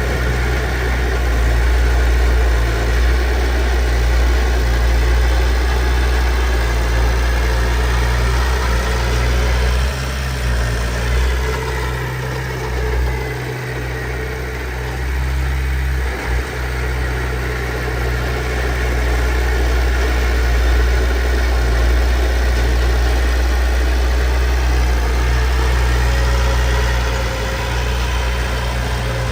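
Bulldozer's heavy diesel engine running steadily with a deep rumble. Its note dips and wavers a few times around the middle, then steadies again.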